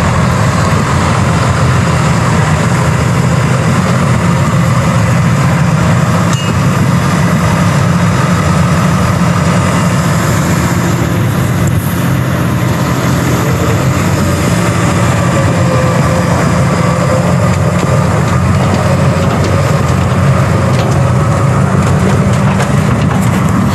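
Tractor's diesel engine running steadily at an even pitch.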